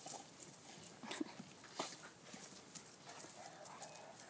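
Two Boerboel dogs play-wrestling on grass: faint, scattered short scuffles and brief dog vocal sounds.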